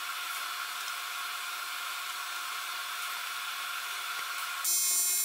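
Steady airy hiss, then near the end a TIG welding arc strikes on aluminium with a high, even AC buzz.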